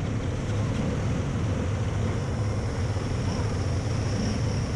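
Yamaha WR250 single-cylinder enduro dirt bike engines running as the riders pull away, heard from a helmet camera on the rider's own bike.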